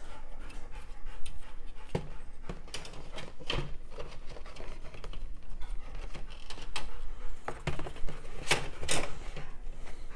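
Hard plastic terrain sprues being handled, clicking and knocking against each other and the table at an irregular pace, with a couple of louder rustles near the end.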